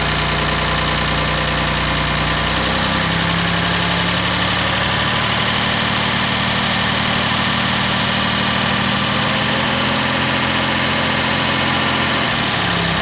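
1970 Mercedes 250's 2.5-litre straight-six, fed by freshly rebuilt and tuned Zenith 35/40 dual carburettors, running smoothly. Its speed rises a little about three seconds in, holds steady, and drops back to idle near the end.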